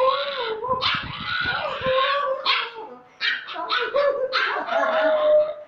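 Husky puppy howling in long, wavering howls, with a man howling along with it; a short break about three seconds in, then the howling starts again.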